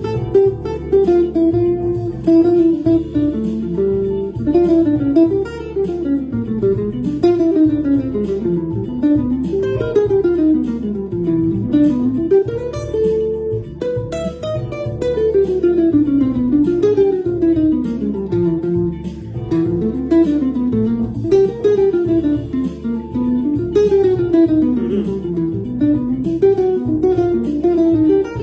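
Hollow-body archtop electric guitar playing a long, fast improvised jazz line of single notes that runs up and down in quick runs, over a backing track holding one chord with a steady low pulse underneath.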